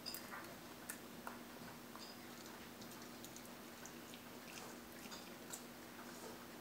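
A small dog biting and chewing a walnut, cracking the shell: faint, irregular crunches and clicks.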